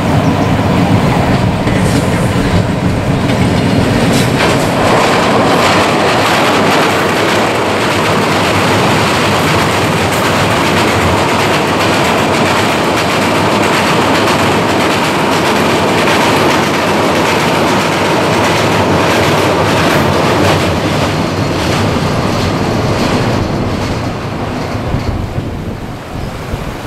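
Bangladesh Railway's Panchagarh Express diesel train passing at speed. For the first few seconds the locomotive's engine drone is heard, then the steady rumble and clickety-clack of the coaches' wheels as they cross a steel truss bridge, easing off near the end.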